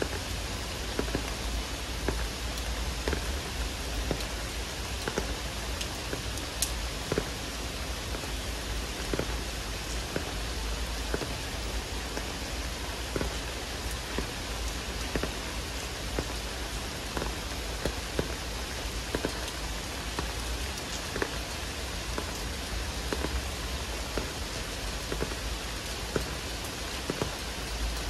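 Heavy rain falling steadily, a dense even hiss with frequent close drops ticking on a hard surface at irregular intervals, over a steady low rumble.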